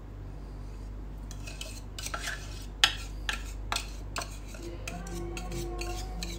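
Kitchen utensil clinking and scraping against a cooking pan as the hot mango pudding mixture is poured and scraped into a mould: a run of sharp clinks, the loudest about three seconds in.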